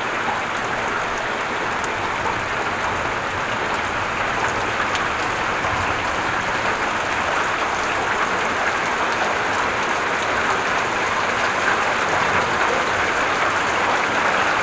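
Heavy rain falling steadily, a dense even hiss with no thunder, growing slightly louder toward the end.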